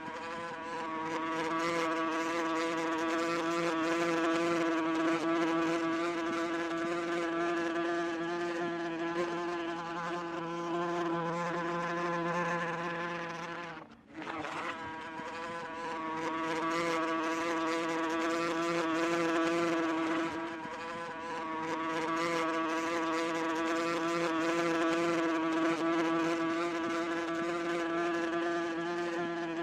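Wasp buzzing: a steady drone with a slight waver in pitch, broken off briefly about halfway through.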